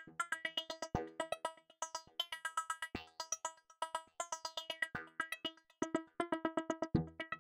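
Addictive Synth, a wavetable synthesizer app on an iPad, playing an arpeggiated preset: a fast even run of short synth notes, about eight a second, with a deeper accented hit every two seconds. The tone grows brighter and duller as its spectrum setting is changed.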